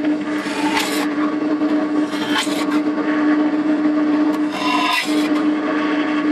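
Drill press motor running with a steady hum while a 5 mm twist bit drills small holes through a sheet-metal panel, with a short grinding cut three times, at about a second in, near the middle and toward the end, as the bit goes through.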